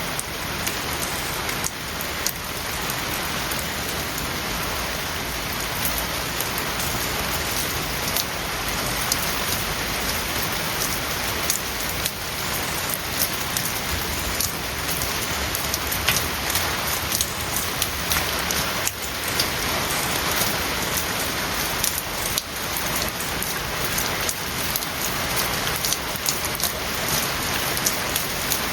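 Steady rain falling, with many individual drops clicking sharply against a hard surface.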